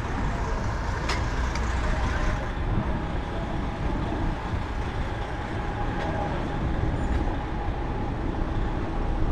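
Steady rumbling ride noise from a moving bicycle's camera: wind and road rumble, with street traffic in the mix. A couple of sharp clicks or rattles come about a second in.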